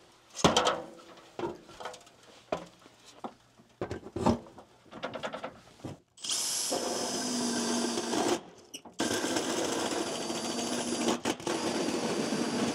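A few scattered knocks and handling clicks, then about six seconds in a power drill with a 2.5-inch hole saw starts cutting through the wall, running steadily with a high whine. It stops briefly about two seconds later, then runs on with one short pause, boring the refrigerant line hole from the outside.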